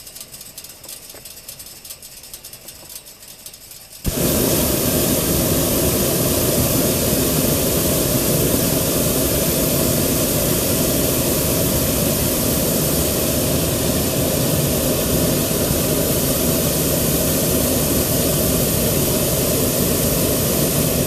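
Hot-air balloon's propane burner firing in one long, loud, steady blast that starts suddenly about four seconds in and lasts about seventeen seconds.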